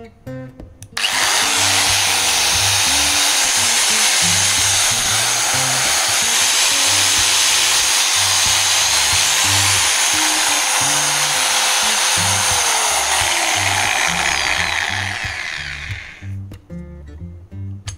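DeWalt DW810 710 W angle grinder switched on about a second in and running free at full speed with no disc fitted, with a steady whine. Near the end it is switched off and its pitch falls as it winds down to a stop.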